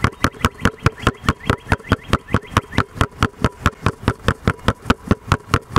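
Two basketballs dribbled low and fast on asphalt, bouncing together in a quick even rhythm of about six or seven sharp bounces a second, each with a short ring.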